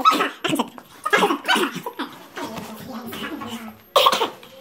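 A man coughing in several short bursts, with other vocal noises between them.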